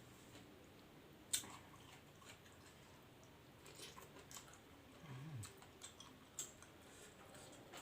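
Quiet close-up eating sounds of a person chewing squid and raw vegetables, with scattered soft clicks and one sharp click about a second and a half in. A brief low vocal hum comes about five seconds in.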